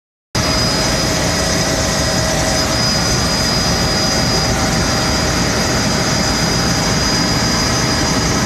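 Helicopter in flight heard from inside the cabin: a steady loud noise of engine and rotor with a thin high whine running through it, starting just after the beginning.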